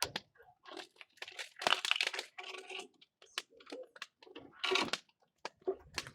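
Dry coconut fronds being broken and handled, giving irregular crunching, crinkling and snapping with sharp cracks.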